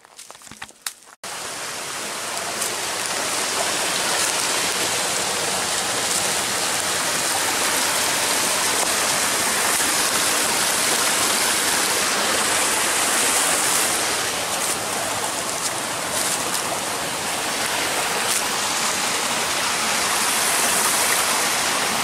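A mountain creek cascading over boulders: a steady rush of water that starts abruptly about a second in, after a few light crackles of footsteps on leaf litter.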